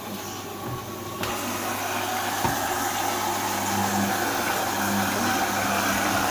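LG WD-80155NUP front-loading washing machine running mid-cycle. About a second in its noise steps up suddenly, then keeps building for a couple of seconds to a steady, louder whir.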